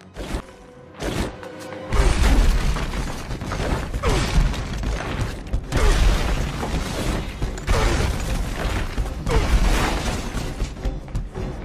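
Film action soundtrack: walls smashing apart over orchestral score, with repeated heavy crashes and falling rubble starting about two seconds in, roughly every two seconds.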